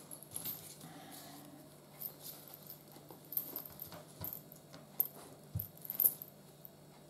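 Handling noise from leather rifle slings being picked up and flexed, with scattered small clicks and clinks from their metal buckles and fittings.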